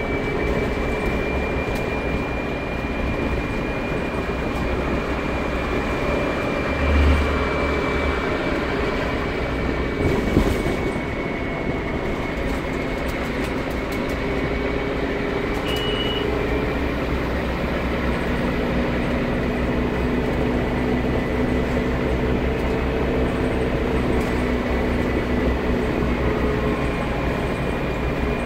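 Scania CN230UB bus on the move, heard from inside the passenger saloon: steady engine and road noise with a constant high whine. A low thump about seven seconds in, a sharp knock a few seconds later, and a short high beep just past the middle.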